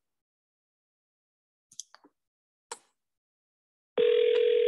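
Telephone ringback tone on an outgoing call that is ringing unanswered. After a quiet gap broken by a few faint clicks, a steady ring tone starts about four seconds in.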